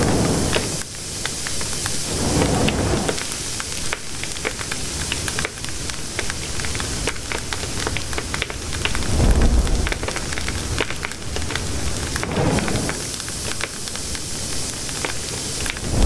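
Large fire burning: a steady hiss full of dense crackling and small pops, with low rumbling swells of flame every few seconds.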